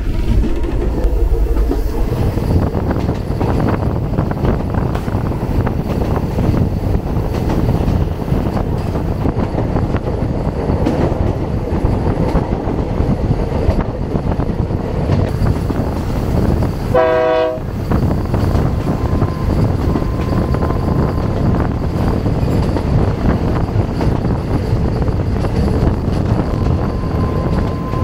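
Passenger train running along the track, a steady rumble and rattle of the carriage and wheels. About two-thirds of the way in, the train's horn sounds in one short toot.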